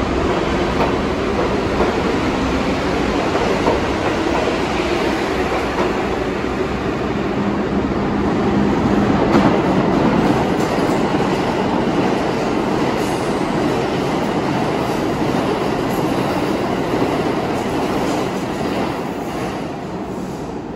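A New York City IRT subway train pulling out of the station and running off into the tunnel: a steady rumble of steel wheels on rail that fades near the end.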